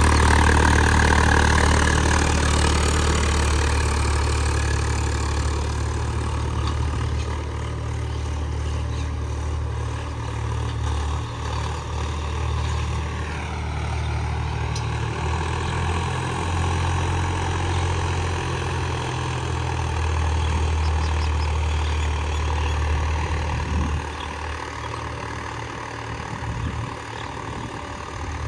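Swaraj 744 FE tractor's three-cylinder diesel engine running with a steady low drone, loudest at first and easing off after several seconds.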